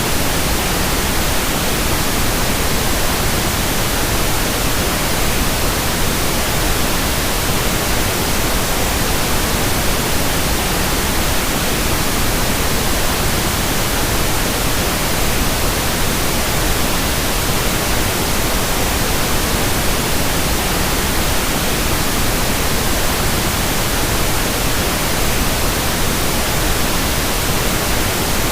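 Steady synthetic masking noise for tinnitus: an even, unbroken hiss spread across low and high pitches alike, with no changes.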